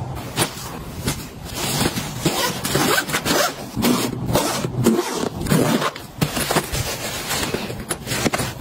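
Zipper on a fabric packing cube being pulled shut in a series of short rasping strokes. It is the cube's second, compression zipper, closed to squeeze the packed cube flatter.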